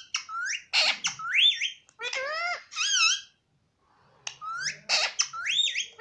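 Indian ringneck parakeet talking in a high, squeaky voice, short mimicked words in quick bursts. There is a brief harsh squawk about a second in and a pause around the middle.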